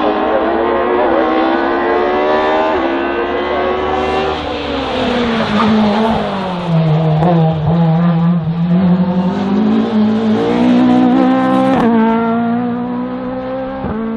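Race touring car's engine driven hard: it revs up with a quick upshift about three seconds in, its pitch falls and stays low for a few seconds midway as it passes close by, then it climbs again with further upshifts near the end.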